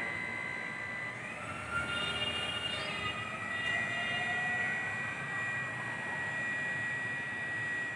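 Battery-operated hydraulic floor crane's electric pump motor running with a steady high whine as the boom lifts a load, with extra tones rising in pitch about a second in and then holding steady.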